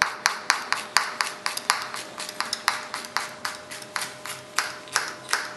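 Kitchen knife chopping a red chili pepper on a cutting board: quick, even strokes, about four a second.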